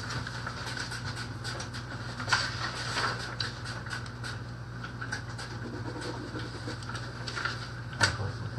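Steady machine hum of a small room's ventilation, with light rustling and clicking as papers and clipboards are handled, and a few sharper knocks, the clearest about two seconds in and again near the end.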